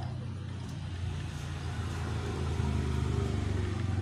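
A motor vehicle's engine running with a low, steady rumble that swells slightly about three seconds in.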